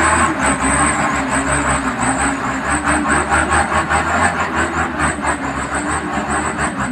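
Motor vehicle engine running while driving, its pitch wandering up and down as the revs change, over steady road and rolling noise.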